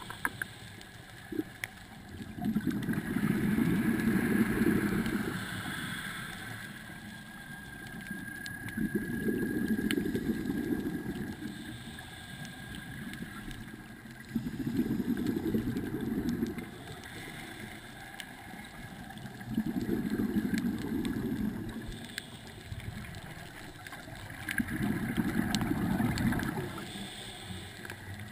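Scuba diver's regulator breathing heard underwater: five rumbling swells of exhaled bubbles, one about every five seconds and each lasting two to three seconds, with quieter intake between.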